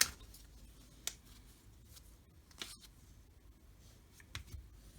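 Trading cards being flipped through in the hands: faint, with a few soft ticks a second or so apart as cards slide and slap against the stack.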